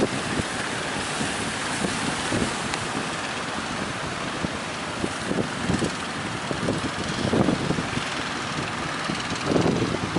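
Strong wind buffeting the microphone over a steady rush of wind and sea on a boat at sea. The hardest gusts come about seven and nine and a half seconds in.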